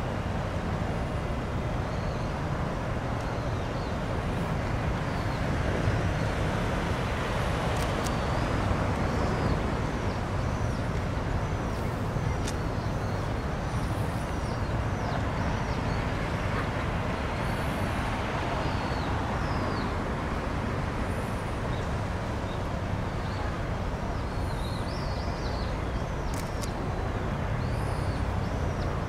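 A steady low rumble, with small birds chirping in short calls again and again over it, and a few faint clicks.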